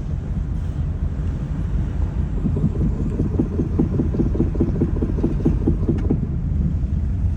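Rapid, evenly spaced knocking from a third-generation Honda Fit, about five or six knocks a second, starting about two and a half seconds in and stopping about six seconds in, over steady road rumble. The knock appears only when the car coasts with throttle and brake released.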